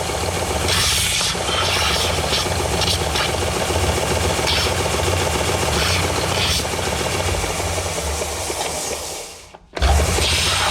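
Electric grinding tool motor running steadily, with intermittent rasping bursts as freshly cut metal pieces are deburred against it. The sound drops out briefly near the end and comes straight back.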